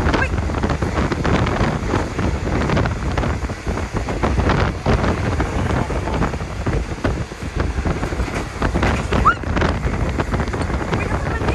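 Wind buffeting the microphone in gusts, heaviest in the low end, with a brief rising squeal about nine seconds in.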